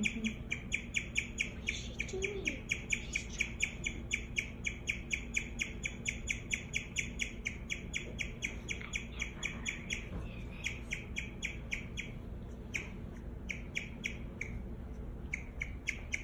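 A guinea pig chirping: a fast, even run of short high chirps, about five a second, that thins out to scattered chirps after about ten seconds.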